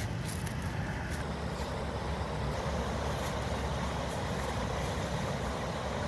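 Steady rush of white-water river rapids, with wind rumbling on the microphone.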